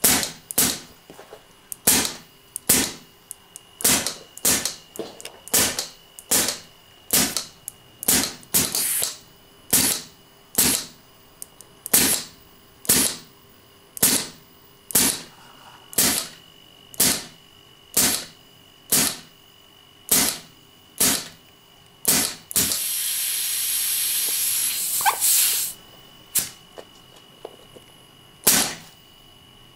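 Homemade solenoid-and-hammer airgun valve firing over and over, each solenoid strike popping out a short, sharp burst of compressed air, about one a second. About three-quarters of the way through, a steady hiss of escaping air runs for about three seconds, then two more shots follow.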